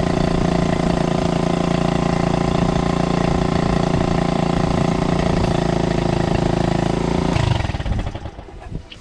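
Small air-cooled outboard motor running steadily out of the water, then shut off about seven seconds in, dying away quickly.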